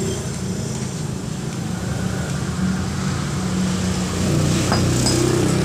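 A vehicle engine running steadily, with an even low hum, a little louder near the end. Two short clicks come near the end.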